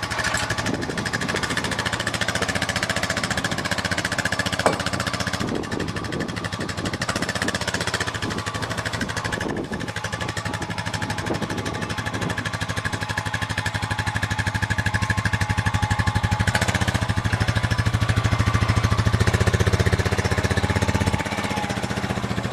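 Honda 4x4 ATV engine running at low speed, idling and then under way as the quad is ridden out of the shed, down wooden ramps and onto grass. It grows louder over the second half and eases off shortly before the end.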